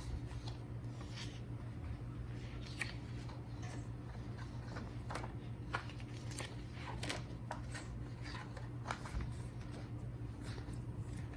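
Pages of a photobook being turned and handled: scattered light paper rustles and small clicks, over a low steady hum.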